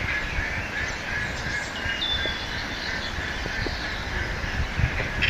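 Birds calling faintly over a steady outdoor background hiss, with a short high whistled note about two seconds in and some low rumbling.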